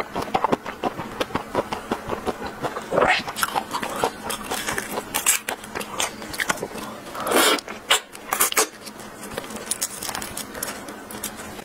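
Close-miked eating sounds: rapid clicks and crackles of a large prawn's shell being peeled by gloved fingers, mixed with chewing, with two louder, longer crunching or rustling noises about three seconds in and again near the middle.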